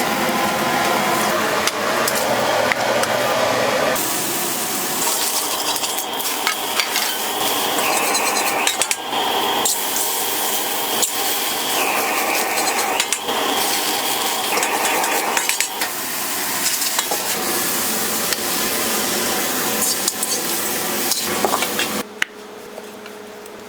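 Food sizzling in a hot pan or on a griddle while metal utensils scrape and clink against it. The sound changes abruptly about four seconds in and drops much quieter near the end.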